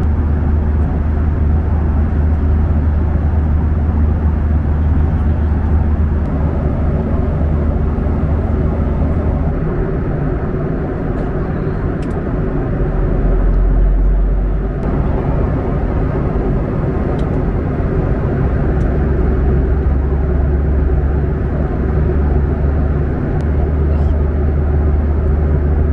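Steady cabin noise of a jet airliner in flight: an even rush of engine and airflow noise over a strong low hum.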